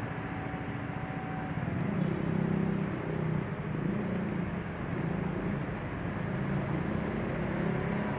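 Steady city street traffic noise, with a vehicle engine running close by that grows louder about two seconds in and keeps going with a wavering low hum.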